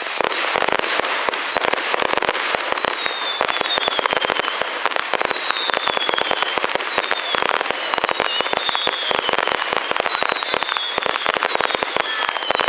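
Fireworks display going off continuously: dense, rapid crackling and popping, with a whistle falling in pitch that repeats about once a second.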